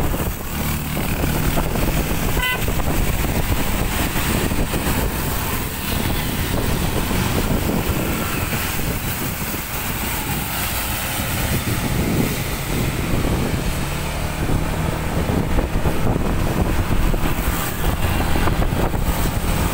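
Storm wind and heavy rain rushing on the microphone over passing road traffic with engines running, and a short horn toot about two and a half seconds in.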